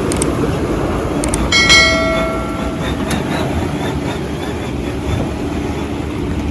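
Heavy diesel machinery running with a steady rumble, with a metallic clang about one and a half seconds in that rings for about a second, and a few sharp clicks.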